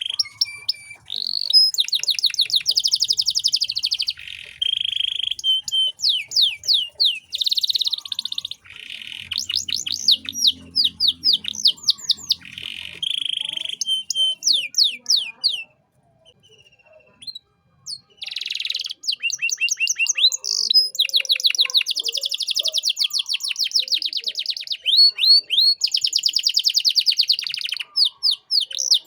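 Domestic canary singing long, fast trills of rapidly repeated notes and runs of quick sweeping whistles, broken by a pause of a couple of seconds a little past the middle.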